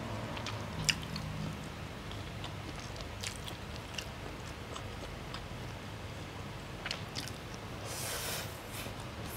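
Close-miked eating: chewing and biting of spaghetti aglio olio with prawns, with scattered small mouth clicks and a short noisy burst about eight seconds in.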